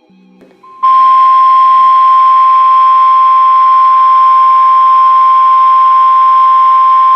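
NOAA Weather Radio 1050 Hz warning alarm tone: one loud, steady, unwavering beep that starts abruptly about a second in and holds. It is the alert signal that comes ahead of a warning broadcast, here a river flood warning.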